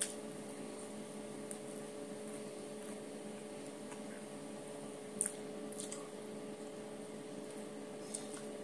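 A steady low hum with a few faint wet clicks of hand-eating, about five seconds in and again near the end.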